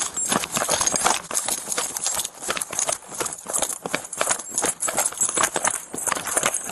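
Running footsteps crunching through dry leaf litter in a quick, steady rhythm, heard up close from a body-worn camera on the runner.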